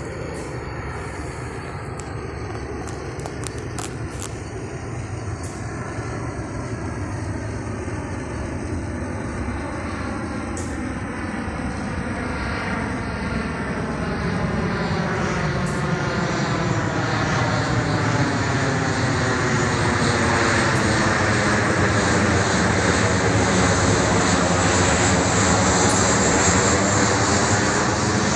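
Boeing 737 jet airliner on landing approach, its engine noise growing steadily louder as it comes nearly overhead. The sound has a sweeping, phasing whoosh near the end.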